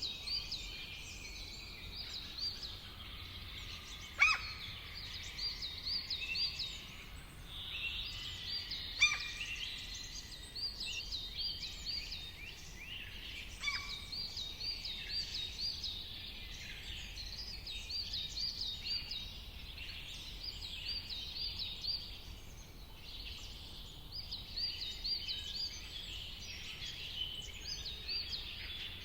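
Several wild birds calling and singing together: runs of rapid, repeated high chirps, with a few louder, sharp down-sweeping calls about four, nine and fourteen seconds in.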